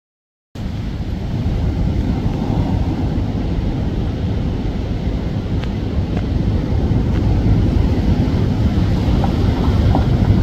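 Wind buffeting the microphone, a loud, steady rumble that starts suddenly about half a second in.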